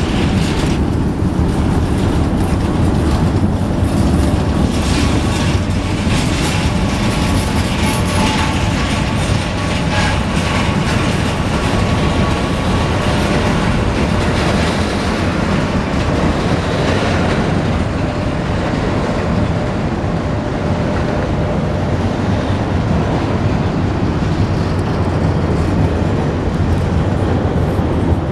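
Union Pacific freight train rolling past close by, a steady loud rumble of wagons with clicking of wheels over rail joints and faint squealing tones from the wheels. The clicking thins out after about the midpoint.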